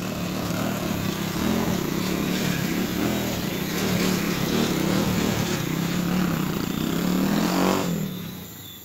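Small motorcycle engine running close by, its note wavering a little, then fading quickly near the end as the bike rides away.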